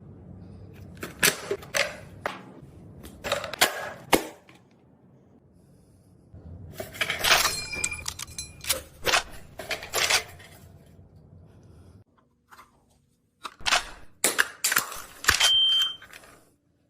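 Airsoft gun reloading: three rounds of sharp clicks and clacks as magazines are pulled out, seated and the gun is racked, with a short pause between each.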